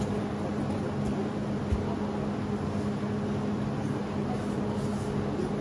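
Steady low mechanical hum with an even hiss over it, and one short thump nearly two seconds in.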